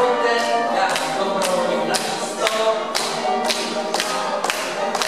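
Dance music with a steady beat of about two beats a second under a melody, played over a PA loudspeaker.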